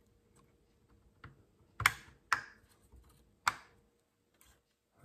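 Sharp plastic clicks and taps as the BMW E36 instrument cluster's locking clips and housing are pressed back together: three louder clicks between about two and three and a half seconds in, with a few fainter taps around them.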